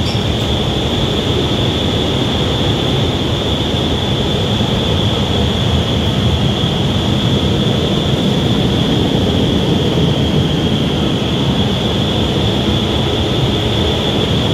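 Vertical wind tunnel for indoor skydiving running at flying speed: a loud, steady rush of air with a steady high whine over it.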